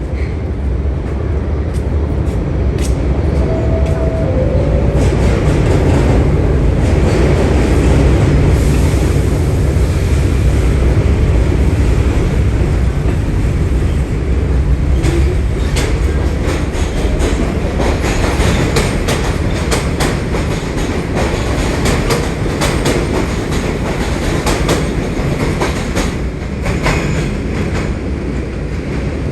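New York City subway train running through the station: a steady heavy rumble with wheels clacking over rail joints. The clacks come thick and fast in the second half.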